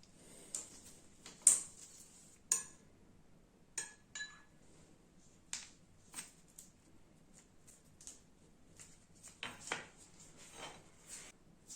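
Scattered clinks and taps of a utensil against small dishes, irregularly spaced, the loudest about a second and a half in. A couple of the clinks near the middle ring briefly.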